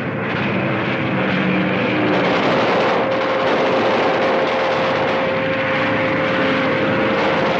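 Propeller aircraft engine droning overhead in a steady, loud run that builds over the first couple of seconds, with one held tone through it.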